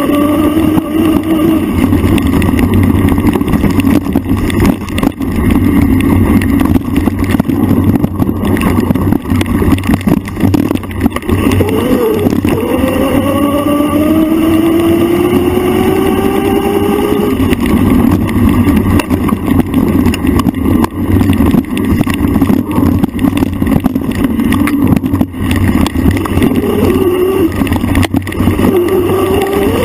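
Ride noise from a bike-mounted camera on rough singletrack: steady wind rumble and rattling over the bumpy dirt trail. Around the middle, a motor's tone rises steadily in pitch for several seconds.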